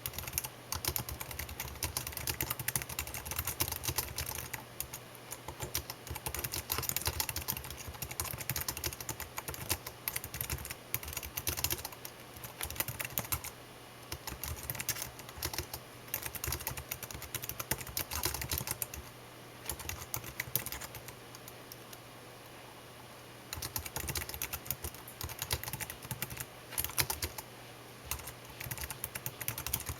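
Typing on a computer keyboard: rapid, continuous keystroke clicks, pausing for a few seconds about two-thirds of the way through before the typing resumes.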